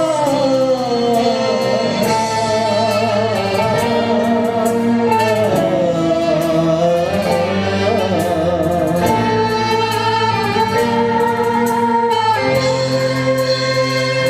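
Live dangdut band music: a melody of long, wavering held notes over a steady sustained accompaniment.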